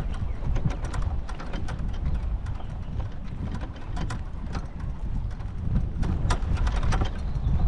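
Wind buffeting the microphone as a steady low rumble, with frequent small clicks and rattles throughout.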